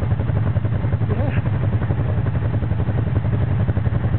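ATV engine running steadily close by, a loud, even low pulsing hum with no change in speed.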